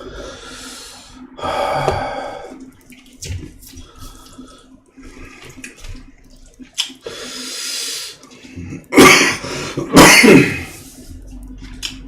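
Close-miked eating sounds: wet chewing and slurping, with two loud slurps about nine and ten seconds in. A faint steady hum runs underneath.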